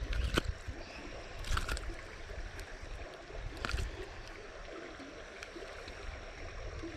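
Small creek's water running and trickling steadily, with three short sharp noises: one near the start, one about a second and a half in, and one a little before four seconds.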